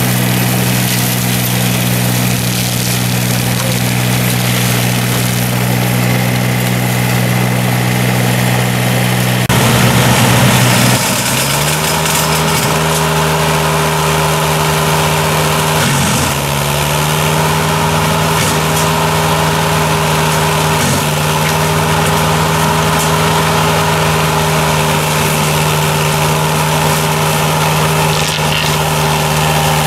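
Berti E-Trail remote-controlled tracked flail mulcher running steadily while mulching grass and brush, with a steady engine note that shifts to a new pitch about ten seconds in.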